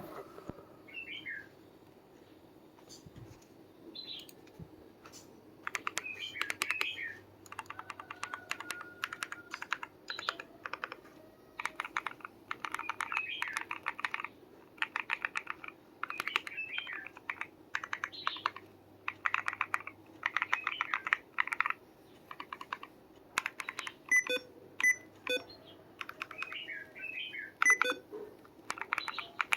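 Womier Star80 Ultra mechanical keyboard with bear keycaps being typed on, fast runs of key clicks in bursts of a second or two separated by short pauses.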